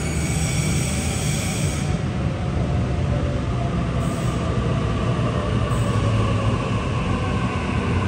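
Sydney Trains double-deck electric train running slowly along an underground platform as it pulls in: a steady low rumble of wheels and running gear with a faint whine, easing as the train slows toward a stop.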